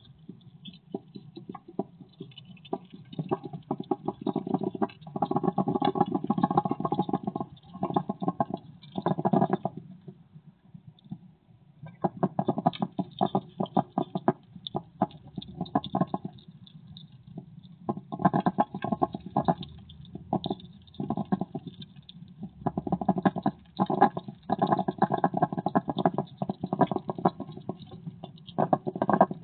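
European hedgehog eating close to the microphone: wet chewing, crunching and lip-smacking in bursts of a few seconds with short pauses, the longest pause about ten seconds in.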